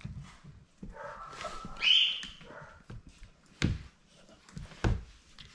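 Springer spaniel puppy giving a high-pitched whine about a second in, then two sharp knocks about a second apart.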